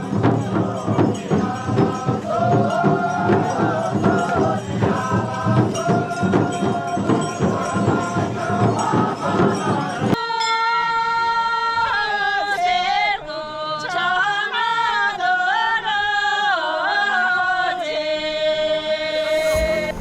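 Group chanting over steady drumming and jingling percussion, typical of Tamang shamans' ritual music. About ten seconds in it cuts off abruptly and gives way to a single melodic line with sliding, wavering notes.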